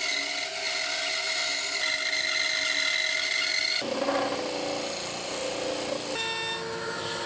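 A bandsaw running and cutting through a thick segmented wenge ring glued to a maple board. About four seconds in it cuts abruptly to a disc sander running as the ring's edge is sanded against the disc.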